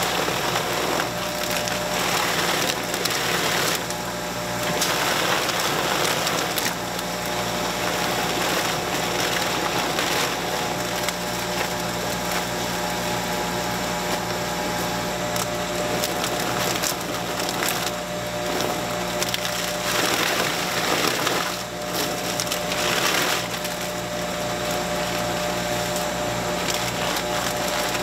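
Motorized duck-plucking machine running steadily, stripping feathers off a duck held against it. The rushing noise swells each time the bird is pressed into the spinning pickers, several times over.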